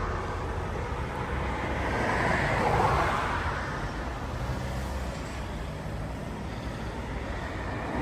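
Road traffic noise with a low rumble, swelling about two to three seconds in and then settling.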